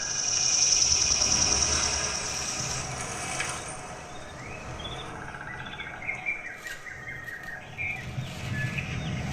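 Dolby Atmos demo soundtrack played through a Sony HT-ZF9 soundbar and wireless subwoofer, heard in the room: a steady high hiss for about the first three seconds, then short bird chirps over a low rumble.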